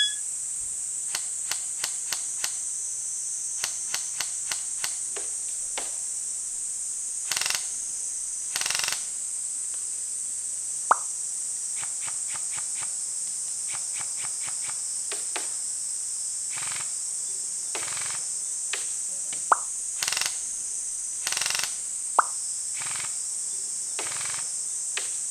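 Electric airsoft gun firing single shots, each a short sharp click, irregularly spaced, with three much louder cracks that each end in a brief rising ring. A steady high-pitched drone runs underneath.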